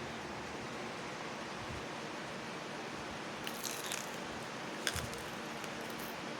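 Steady low background hiss, with a few faint short clicks a little past halfway and again about five seconds in.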